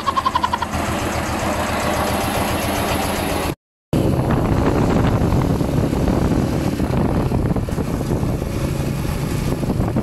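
Motorcycle engine running, first at a steady idle, then while riding along a road, with wind and road rumble. The sound drops out for a moment about three and a half seconds in, at an edit cut.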